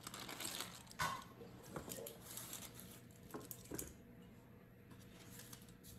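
Faint paper rustling and a few light taps from handling a parchment-lined sheet pan as a proofed baguette is rolled onto it.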